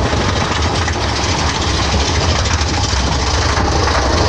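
Big Thunder Mountain Railroad mine-train roller coaster running along its track: a steady, loud, low rumble and clatter from the train.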